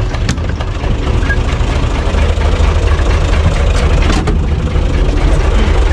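UTB 445 tractor's four-cylinder diesel engine idling with a steady low chugging, a little louder after about a second. Two short clicks, one right at the start and one about four seconds in.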